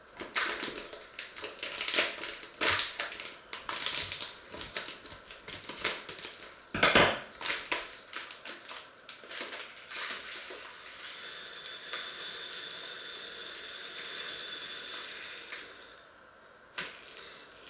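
A rapid run of small clicks and knocks, with one louder knock about seven seconds in, then a steady high hiss lasting about five seconds that stops suddenly.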